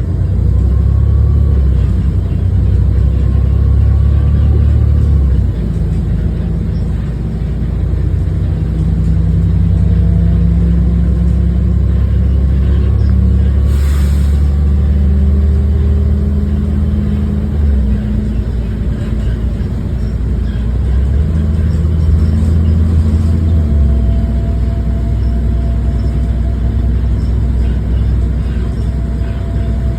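Bus engine running under way, its note shifting several times, with a faint turbocharger whine above the rumble. A single sharp knock comes about fourteen seconds in.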